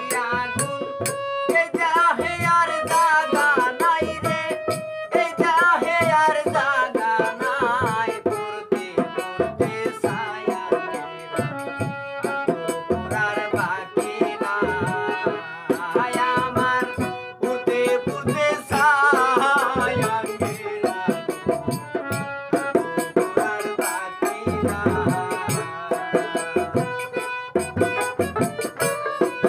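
Bengali folk music played live: a two-headed barrel drum beats a quick, steady rhythm under harmonium and a plucked dotara, with a wavering melody line held over them.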